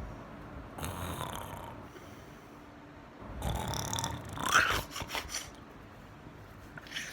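A person imitating snoring: a short snore about a second in, then a longer, louder snore from about three seconds in that breaks into several quick snorts near the end.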